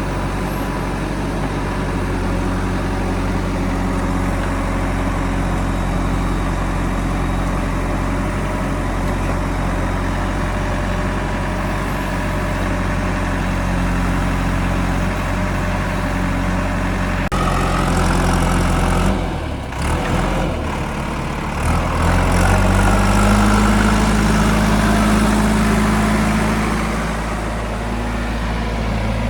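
Backhoe loader's diesel engine running steadily. About two-thirds of the way through the sound changes and briefly drops out, then the engine revs up and holds a higher note for a few seconds before easing back.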